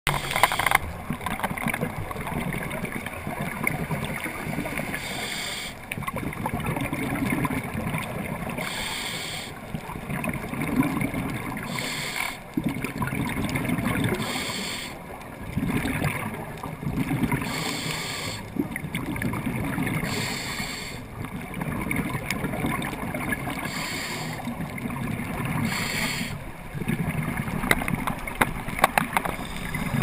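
Scuba regulator breathing heard underwater: hissing inhalations alternating every few seconds with bubbling bursts of exhaled air.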